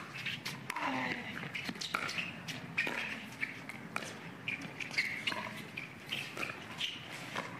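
Pickleball rally: the plastic ball popping off paddles about once a second, with sneakers squeaking on the hard court between shots.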